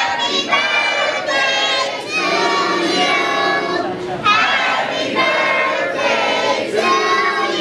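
A roomful of party guests, adults and children, singing together in held notes after a count of three.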